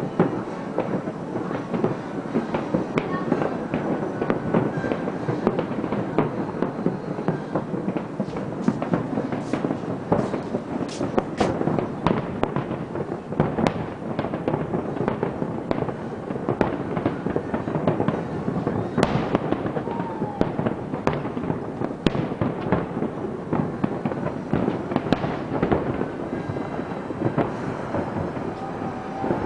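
A large fireworks display: a dense, continuous run of bangs and crackles, so many shots that they blend into one another.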